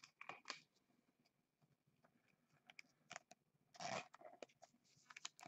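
Faint plastic rustling and small clicks as a trading card is handled and slid into a clear plastic sleeve, with the loudest rustle just before four seconds in.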